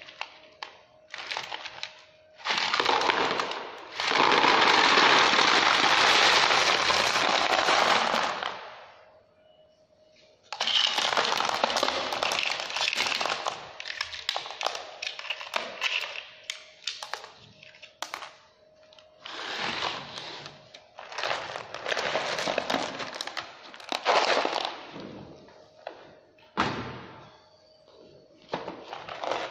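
Small stones pouring out of a bait boat's open hopper and clattering into a plastic tray below, in several long rushes with short gaps, as a gloved hand pushes the last stones out of the hopper.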